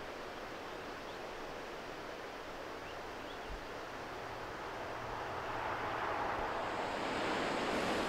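Steady rushing of a river, growing louder over the last few seconds.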